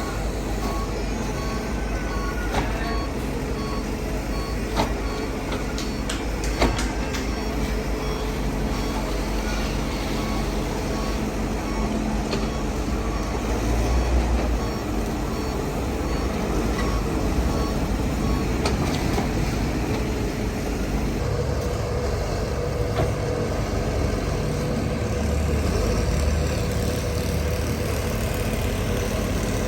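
Diesel engines of an excavator and a dump truck running steadily, with a backup alarm beeping at a steady rate for about the first twenty seconds. A few sharp metal clanks come in the first seven seconds.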